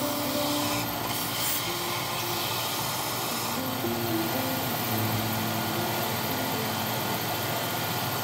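Belt sander running with a steady noisy whir. At first the edge of a walnut cutting board is pressed to the belt; then the board is lifted off and the belt runs free.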